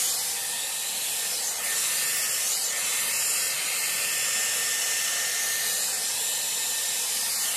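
Dyson Airwrap hair styler with its round brush attachment, blowing air steadily through the hair: an even airy hiss with a faint thin high motor whine.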